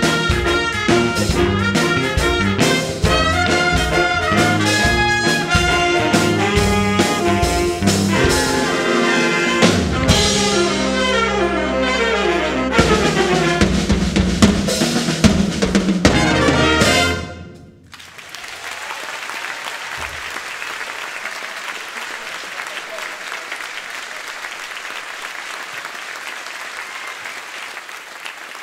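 Youth big band of trumpets, trombones, saxophones and drum kit playing the end of a swing number, closing on a long held chord that cuts off sharply about two-thirds of the way through. The audience then applauds steadily.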